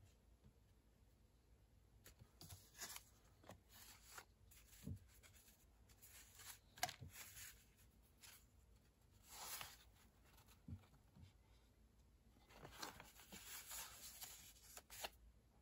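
Faint rustling and light taps of paper as a handmade concertina journal of old book pages is opened, fanned and folded by hand. A longer rustle comes about halfway through and another near the end.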